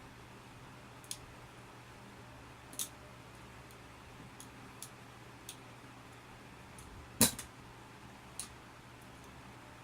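Balisong (butterfly knife) handles clicking as the knife is flipped: scattered single clicks, with one much louder clack about seven seconds in.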